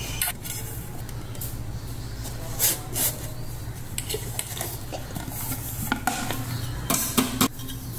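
Stainless steel cake pan being turned upside down onto a plate and handled: scattered clinks, taps and scrapes of metal on the plate, with the loudest knocks about seven seconds in. A steady low hum runs underneath.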